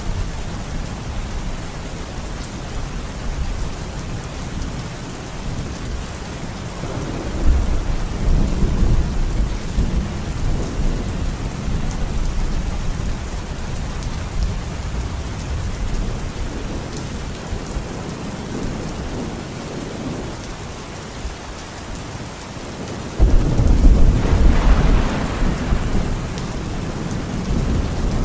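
Heavy rain falling steadily, with a roll of thunder about a quarter of the way in and a louder, sudden rumble of thunder near the end.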